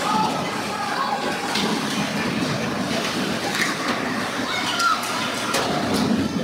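Sounds of a youth ice hockey game inside an ice arena: skates scraping the ice, several sharp clacks of sticks and puck, and spectators' voices in the background.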